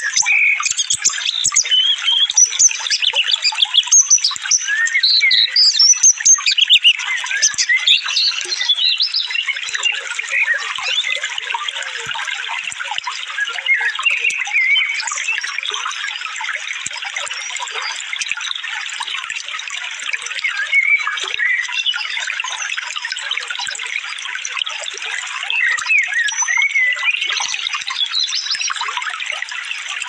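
Many small songbirds chirping and calling in rapid, overlapping bursts over a steady hiss of running water. The calls are densest in the first third.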